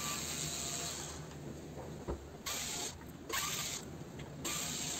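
Electric drill-driver backing Phillips-head screws out of an aluminium ballast case: one run of the motor stops about a second in, followed by three short bursts of about half a second each.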